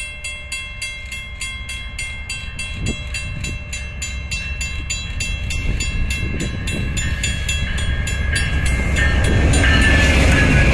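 Level-crossing warning bell ringing in rapid, evenly spaced strokes while a Via Rail P42DC diesel locomotive approaches. The locomotive's engine and wheel rumble grows steadily louder and drowns out the bell as it passes close by near the end.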